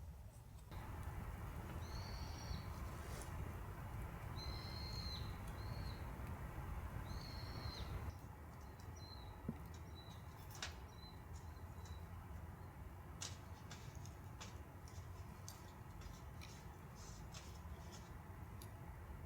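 A wild bird calling several times with short arched chirps, fading to softer notes after about eight seconds. Through the second half, scattered sharp crackles and pops of a wood campfire sound over a steady low rush.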